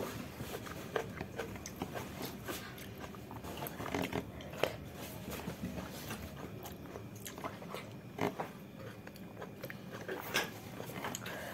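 A person chewing and biting food close to the microphone while eating by hand, heard as irregular small mouth smacks and clicks, with a few louder ones.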